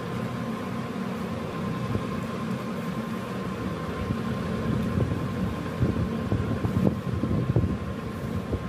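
Steady low background hum with a thin constant tone, like a running fan; a few soft knocks and scrapes about five to eight seconds in, from a pen writing and circling a question number on paper.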